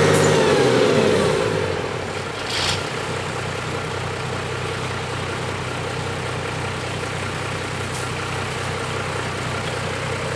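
Backhoe's diesel engine coming down from high revs to idle over the first second or so, then idling steadily. A short hiss comes about two and a half seconds in.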